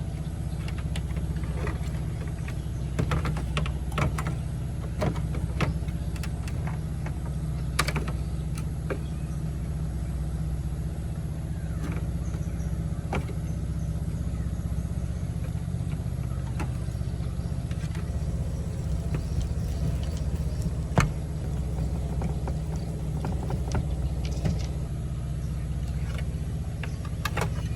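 A steady low hum with scattered sharp clicks and taps, the loudest a little under 8 seconds in and about 21 seconds in.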